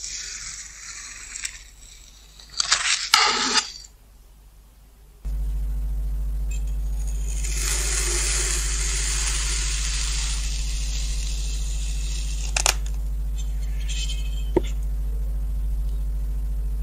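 A knife blade slicing through packed kinetic sand: a soft gritty hiss, then a loud crunchy scrape about three seconds in. From about five seconds in a steady low electrical hum sets in. Over the hum, a metal crinkle cutter pressing down through kinetic sand gives a longer gritty hiss, followed by two short clicks.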